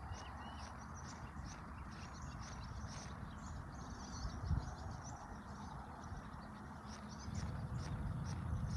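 Pond-side outdoor ambience: many short, high chirps from birds repeat throughout over a low rumble. There is one thump about halfway through, and the rumble grows louder near the end.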